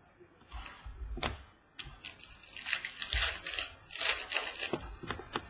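Trading cards and a clear plastic card holder being handled: a couple of sharp clicks, then two spells of plastic rustling and sliding.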